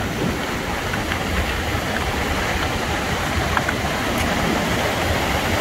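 Surf washing in and around jetty rocks, with steady wind buffeting the phone's microphone as a low rumble.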